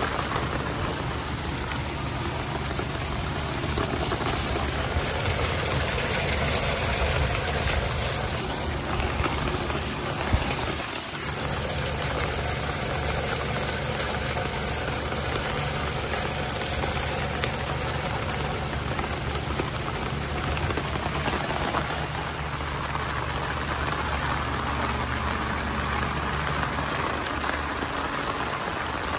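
Steady rain falling on pavement, plants and the building. Underneath it runs a steady low engine-like hum that fades out about two-thirds of the way through.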